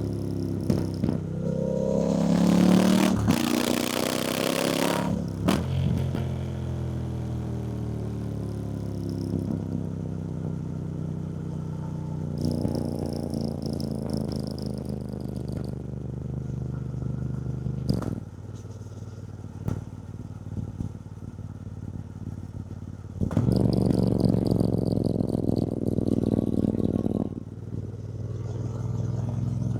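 2024 Triumph Bonneville T120's 1200cc parallel-twin engine under way: the engine note rises under throttle, then falls and settles as the bike rolls on. There is a loud rush of wind about three seconds in, a quieter off-throttle stretch in the middle, and the engine pulls harder again about three-quarters of the way through.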